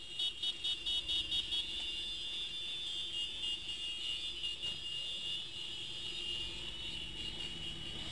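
Traffic of a group of motorcycles riding ahead, heard as a low rumble under a steady high-pitched whine. In the first second and a half the whine is broken into a quick run of about eight short pulses, about five a second.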